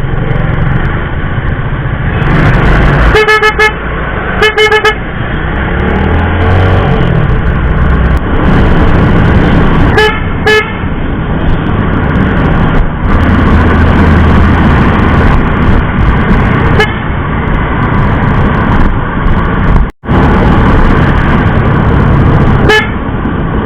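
Aftermarket G-Star snail-type electric horns on a Yamaha Sight 115 Fi scooter sounding in short blasts: two separate toots about three and four seconds in, a quick double toot around ten seconds, and brief taps later on. All of it sits over a loud, constant rumble of road and vehicle noise.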